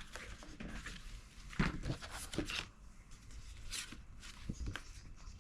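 Paper leaflets and a printed manual being handled and leafed through: soft, intermittent rustling and shuffling of paper.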